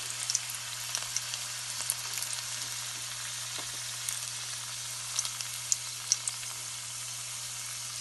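Whole spices (cinnamon stick, bay leaves, star anise, cloves) and garlic frying in hot oil in a metal kadai: a steady sizzle with scattered small pops.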